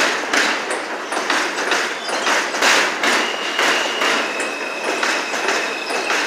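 New York City Subway M train of R160 cars running on an elevated track, its wheels clattering over the rail joints about two to three times a second. A thin, steady high whine comes in about three seconds in.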